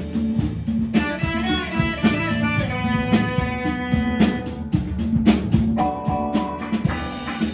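A band playing a song: guitar notes over bass and drums.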